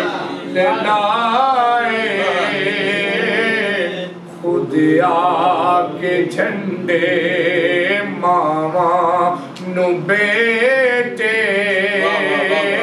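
A man singing a naat into a microphone, holding long wavering notes in phrases, with short breaths between phrases about four seconds and near ten seconds in.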